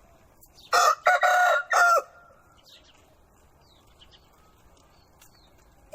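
Rooster crowing once: a loud cock-a-doodle-doo about a second long, in three parts, starting near the beginning.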